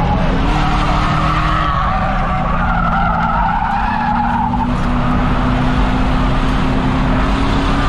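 Ford Crown Victoria race car's V8 engine running hard on the oval, with its tyres squealing from about a second and a half in until just under five seconds in, while the engine note climbs slowly.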